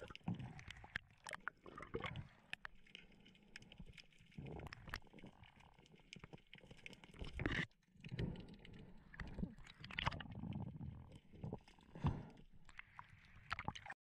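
Faint, muffled underwater sound picked up by a camera in its waterproof housing: scattered clicks and knocks with short low rumbles of water and handling.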